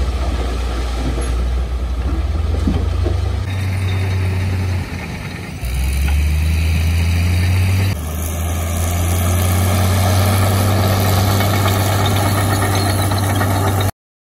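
Heavy diesel engines of dump trucks running steadily while the trucks hold their beds tipped to unload dirt. The sound shifts abruptly a few times between shots and cuts off suddenly near the end.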